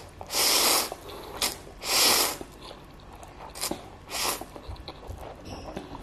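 Instant fried noodles being slurped off a fork: two long loud slurps in the first two and a half seconds and a shorter one about four seconds in, with quieter chewing and small wet mouth clicks between.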